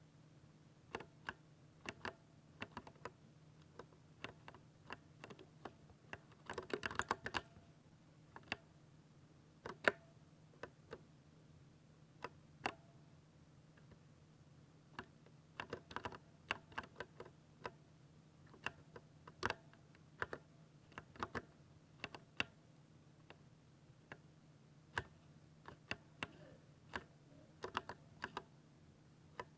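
Typing on a 60% mechanical keyboard: irregular, thocky keystrokes, with a quick flurry of presses about seven seconds in.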